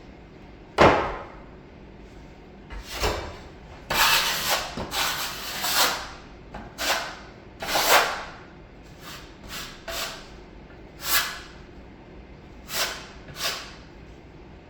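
Drywall knife scraping and knocking while working joint compound. A sharp knock comes about a second in, a run of scraping strokes follows in the middle, then a series of short, separate scrapes.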